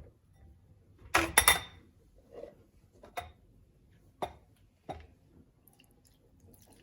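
Kitchenware clattering and clinking as fresh orange juice is strained into a glass: one loud clatter about a second in, then three sharp single clinks spaced about a second apart.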